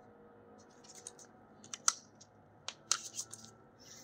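A handful of sharp, light metallic clicks and clinks from an Allen key and the bolts of a go-kart brake caliper being handled and turned.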